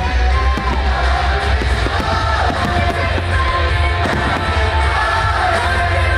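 A song with a singer and heavy bass, played to accompany a fireworks display, with many sharp bangs of aerial shells bursting through it.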